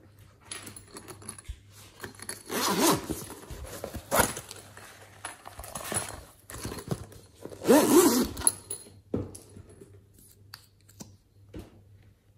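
A hard-shell pencil case being handled and moved about, its shell rubbing and scraping on the table and the slime containers, with louder squeaky rubs about 3 seconds in and again, loudest, about 8 seconds in.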